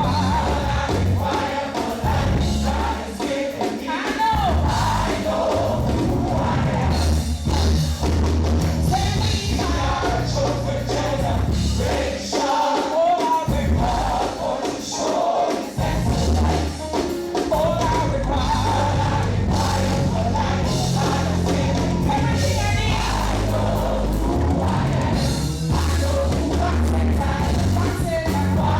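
Live gospel praise music: singers and a choir over a band with a bass line that steps from note to note.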